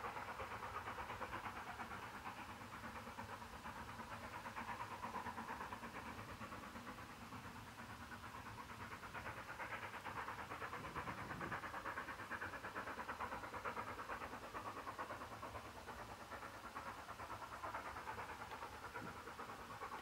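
Rapid exhaust beats of two QJ 2-10-2 steam locomotives double-heading a train, heard at a distance as they work away. The beats run as a dense, even chuffing that swells and eases every few seconds.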